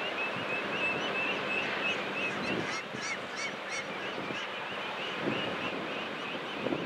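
Birds chirping: many short, repeated high calls, busiest from about two and a half to four seconds in, over a steady background rush.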